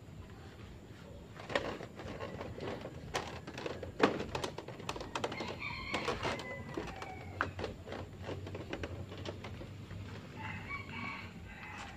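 A cloth rubbing and wiping over a motorcycle's bodywork, with scattered knocks and taps, the loudest about 1.5 and 4 seconds in. A rooster crows twice, around 5 to 7 seconds in and again near the end.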